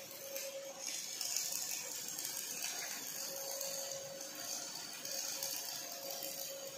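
Robot MIG welding arc on steel: a steady, uneven hiss, with a faint hum that comes and goes underneath.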